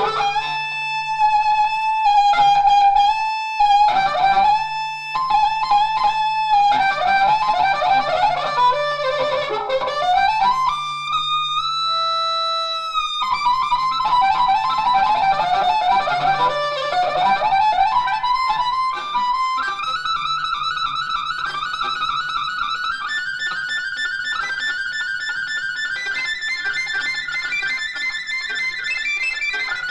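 A live rock band playing an instrumental passage: a sustained lead melody line that slides and bends between notes over a steady low drone.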